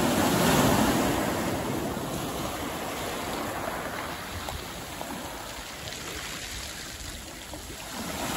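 Small sea waves breaking and washing up over a beach of smooth black pebbles. A wave breaks within the first second and is loudest then, its wash fading away gradually over the following seconds, and the next wave starts to come in near the end.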